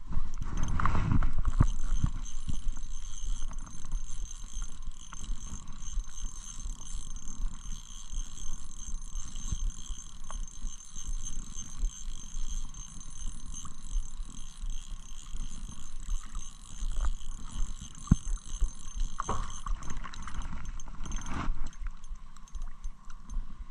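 Wind buffeting a body-worn camera microphone as a fluctuating low rumble, strongest in the first couple of seconds, with clothing rustle and a few light clicks.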